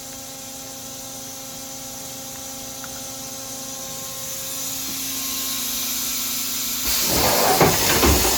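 OKK HP500S horizontal machining center running with a steady hum and a hiss that slowly builds. About seven seconds in, the automatic tool changer puts a tool back into the spindle: a sudden loud, noisy rush with knocks.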